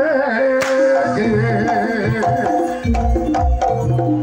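Live jaranan music: hand drums struck under a wavering, bending melody line, with deep low notes coming in about three seconds in.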